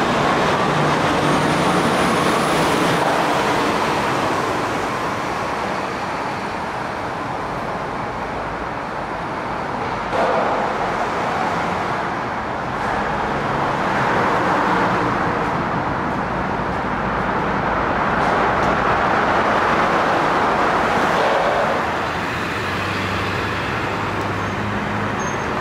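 City transit buses and street traffic: a steady noise of engines and tyres that swells and fades as vehicles pass.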